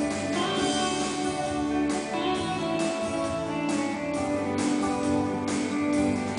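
Instrumental worship-song music: guitar strumming over held keyboard chords, with no voice.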